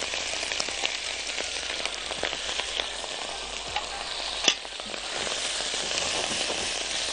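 Pieces of sausage sizzling in hot oil in a wok, a steady frying hiss full of small crackles and pops. There is one sharp click about four and a half seconds in, and the pieces are stirred with a silicone spatula near the end.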